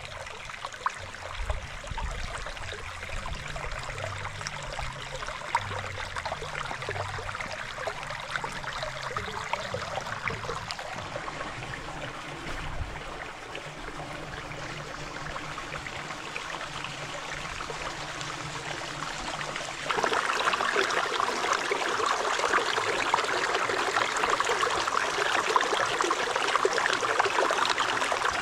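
River water flowing and splashing over a steady rushing noise, with a low rumble underneath in the first half. About two-thirds of the way through it gets abruptly louder and closer.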